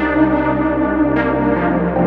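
Background music: ambient synthesizer chords with a steady low bass, a new chord swelling in about every second and a half.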